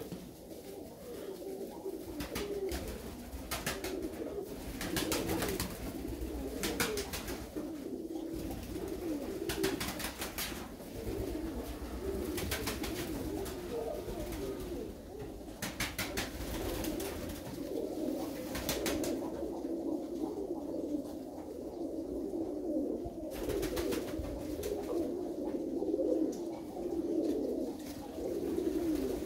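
A flock of Körös tumbler pigeon cocks cooing continuously, with many calls overlapping. Short, sharp clicks come at irregular intervals.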